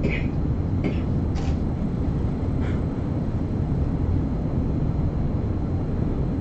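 Steady low rumble of background room noise, with a few faint short sounds in the first three seconds.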